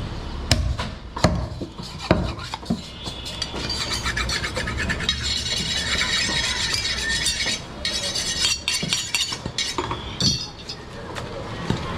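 Butcher's steel knives and cleaver at work on goat meat: a few sharp chops, then a long spell of ringing metal scraping and clinking.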